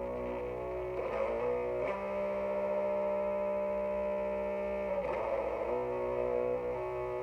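Distorted electric guitar playing slow doom-metal chords, each ringing for a few seconds before the next, the longest held for about three seconds. The guitar is a Jackson X Series SCX 3H through an Orange Micro Crush 3-watt amp, boosted by a Boss ODB-3 overdrive.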